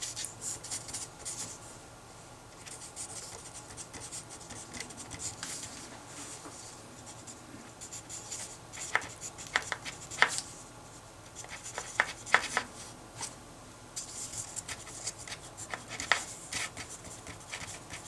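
Writing by hand on paper: runs of short scratching strokes as a math problem is written out, with a few sharper ticks of the writing tip against the page.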